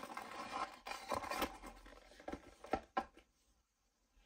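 Handling noise of a cardboard box and a plastic bottle rubbing and scraping in the hands, then a few light knocks as they are set down on a repair mat.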